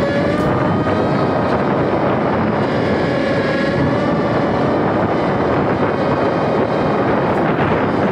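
Ultrix 600 RC plane's electric motor and propeller running in flight, heard from an onboard camera through heavy wind rush on the microphone; a steady whine that wavers slightly in pitch.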